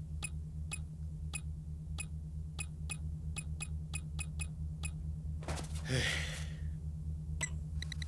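Cartoon electronic sound effects of a hand-held hacking computer: a string of short electronic key clicks at uneven spacing over a low, steady pulsing hum, with a brief whooshing burst near the middle. Just before the end, a fast run of rapid beeps starts as the lock panel's indicator bar fills.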